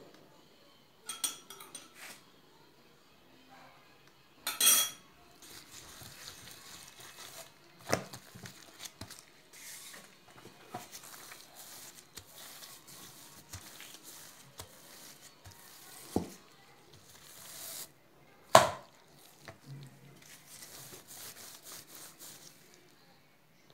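Wooden rolling pin rolling out dough, a soft rubbing noise with scattered knocks and clatters as the pin bumps and is handled against the work surface. A longer clatter comes about four seconds in, and the loudest sharp knock comes a little past eighteen seconds.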